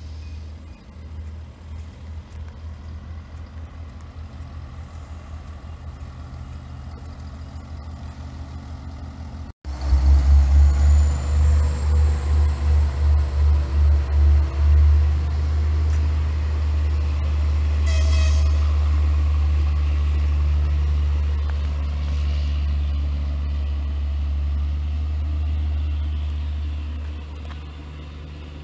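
Passenger train pulling out of a station and drawing away: a low rumble that jumps suddenly louder about a third of the way in, pulses at about two to three beats a second for a few seconds, then runs steadily and fades near the end. A short toot is heard a little past halfway.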